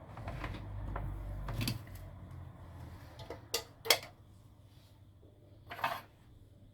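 A few sharp clicks and knocks of things being handled on a workbench, the loudest about four seconds in, with a low rumble during the first second and a half or so.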